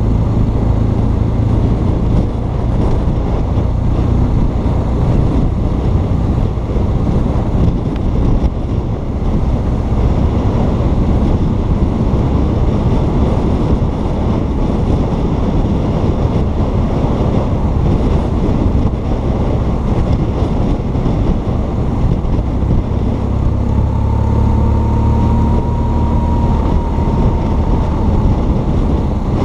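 BMW R1200 GS Adventure's boxer-twin engine running steadily at road speed under heavy wind rush on the microphone. A faint thin whine shows for a few seconds near the end.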